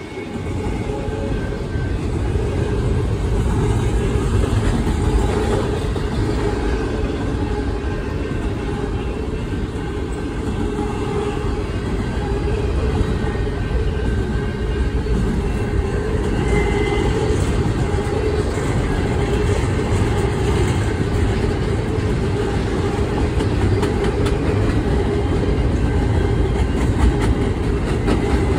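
Double-stack container well cars of a freight train rolling past: a steady, loud rumble of steel wheels on the rails.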